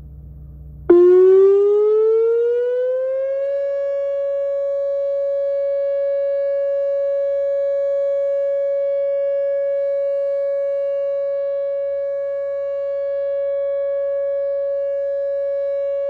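Whelen WPS-2910 electronic outdoor warning siren sounding its Alert signal in a routine monthly test. It cuts in suddenly about a second in, its pitch rising for a couple of seconds, then levels off into a loud steady tone.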